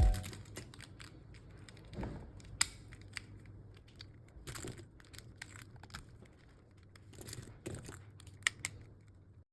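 Plastic speedcube pieces being handled and wiped with a cloth: faint rustling and scattered light clicks of plastic on plastic.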